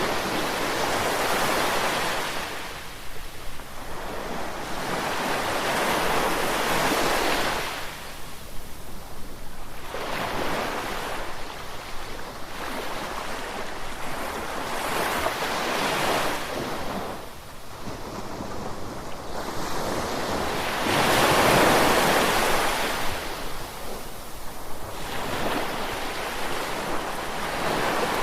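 Ocean surf washing in, swelling and ebbing in waves about every four to six seconds, with the loudest wave about three-quarters of the way through.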